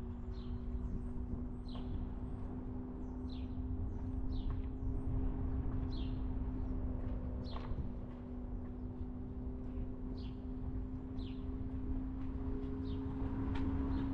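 A car driving along, with a steady low rumble from the engine and road under a constant low hum. Short, high, falling chirps come through about every one to two seconds.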